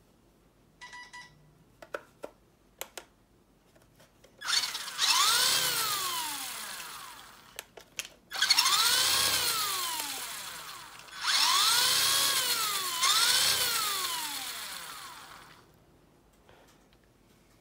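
Electric motor and geared drivetrain of a Traxxas Teton 1:18 RC monster truck revved with its wheels spinning free: a whine that rises and falls four times, in two long bursts starting about four seconds in. Before that, a few light clicks and a short buzz.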